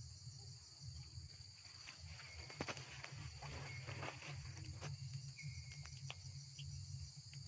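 Steady high-pitched chorus of insects such as cicadas and crickets, faint, with scattered soft clicks from a young macaque chewing fruit close by.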